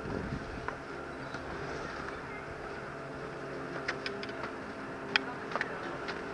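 Chairlift machinery at the loading station running with a steady hum as the chair picks up riders and moves off. A few sharp clicks and knocks come about four seconds in, the loudest just after five seconds.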